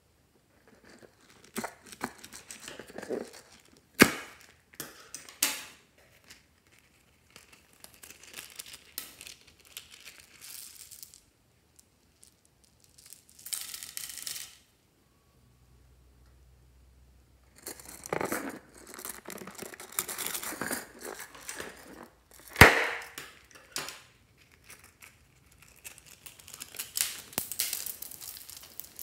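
Soft modelling clay pulled and torn into small pieces by hand, with crinkly handling noise that comes and goes in short spells. Two sharp taps stand out, one about four seconds in and a louder one about three-quarters of the way through.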